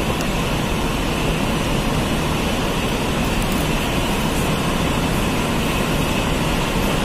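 Steady, even drone of room background noise, with no speech and no distinct events.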